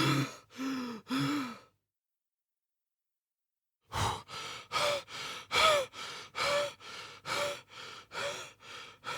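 A man out of breath, panting heavily with some breaths voiced. The breathing stops for about two seconds near the start, then picks up again as rapid panting of about two breaths a second, alternating louder and softer.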